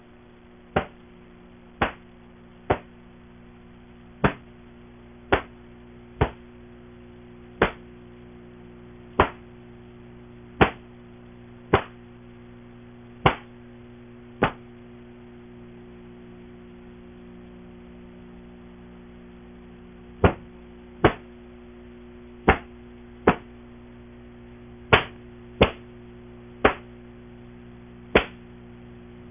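A taekwondo practitioner's techniques in the form Taegeuk 7 giving sharp single snaps, one with each block, punch or kick, in irregular runs with a pause of about six seconds midway. A steady low hum lies underneath.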